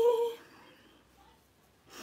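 The end of a long hummed note, held at one pitch and stopping about half a second in, followed by near quiet.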